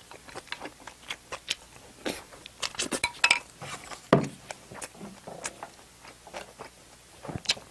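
Chopsticks clicking and scraping against a plate in scattered light taps, with soft chewing between them.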